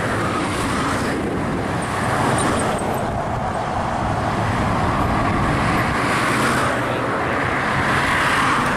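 Steady road traffic noise: a continuous rush of passing vehicles and tyres with no sudden events.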